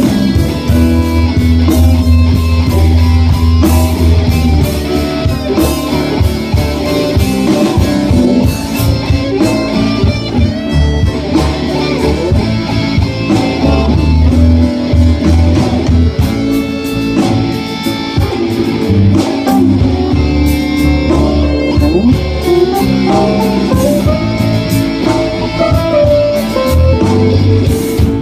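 Live blues band playing an instrumental passage: electric guitars over drums and a deep bass line, loud and steady.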